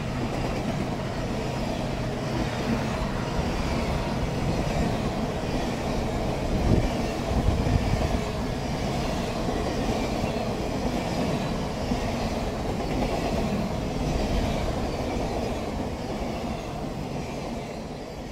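Union Pacific passenger cars rolling past close by: a steady rumble of steel wheels on the rails, with a louder clatter about seven seconds in. It fades near the end as the last cars go by.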